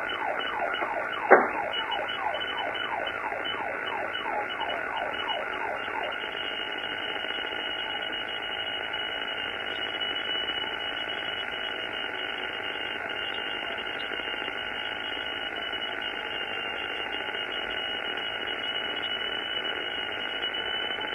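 Police car siren yelping in fast repeated sweeps, with one sharp click about a second in. The siren stops about six seconds in, and a steady hum carries on after it.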